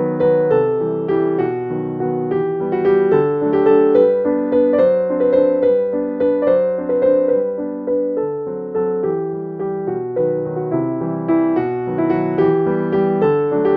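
Background music: a gentle piano melody of evenly paced notes, each struck and fading.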